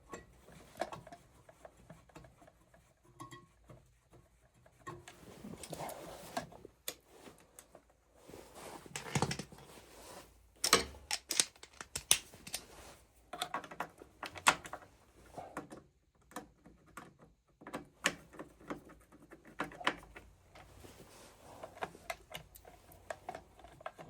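Irregular clicks, taps and small metallic knocks of tools and parts being handled during hands-on work on an oil boiler, with brief scraping rustles. The clatter is loudest and busiest in the middle.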